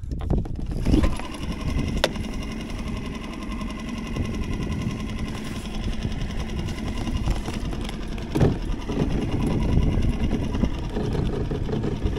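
Mercury 2.5 hp outboard motor running steadily at idle, with a couple of brief knocks, one about two seconds in and one near eight and a half seconds.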